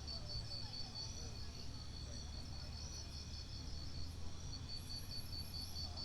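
Insects chirping, cricket-like, in an even pulsed trill of about five pulses a second that fades briefly in the middle, over a steady low background rumble.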